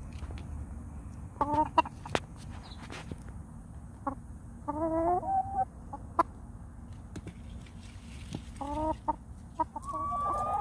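Dominique hens clucking in several short bouts of wavering calls, with a longer, higher held call near the end. A few light clicks and a steady low rumble sit underneath.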